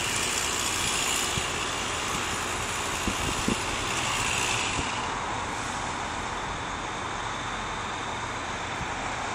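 Steady engine noise from the boom crane truck running, with a few faint knocks about three seconds in.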